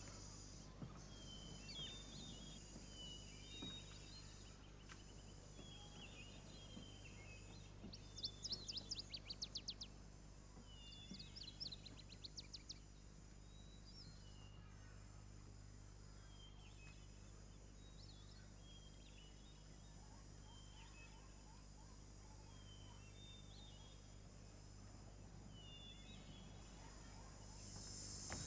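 Faint outdoor ambience: small birds chirping again and again, with a steady high insect drone and a low steady hum beneath. Two spells of quick trilled chirps stand out a little under halfway through.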